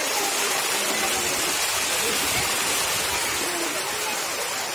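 Steady rush of falling water, as from a waterfall or cascade, with faint voices in the background.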